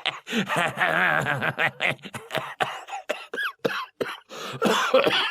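A person's voice making non-word vocal sounds in short bursts, the pitch wavering up and down.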